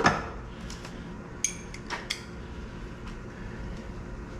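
Metal tools and parts clinking against the Audi BCY V8 as its middle oil pan section is being worked off: a sharp clank at the start, a short metallic ring about a second and a half in, and two more clicks soon after, over a steady low hum.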